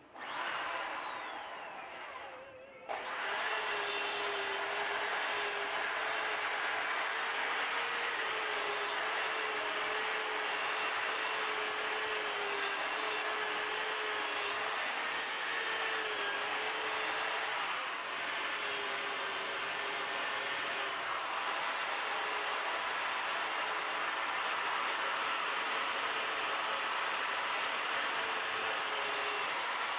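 A high-speed electric power tool motor starts and spins down over about two seconds. About three seconds in it starts again and runs steadily with a high whine, dipping briefly in pitch a few times.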